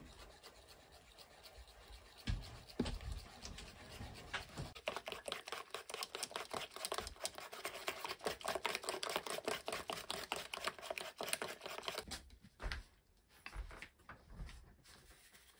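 A wooden-handled whisk beating pancake batter in an enamel bowl: a fast, steady rhythm of wet scraping strokes, about four or five a second, that stops near the end, followed by a few soft knocks.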